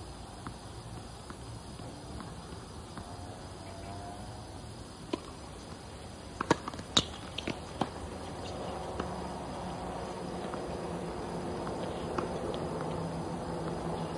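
Sharp knocks of tennis balls on a hard court, about half a dozen in quick succession between roughly six and eight seconds in, over steady outdoor background noise.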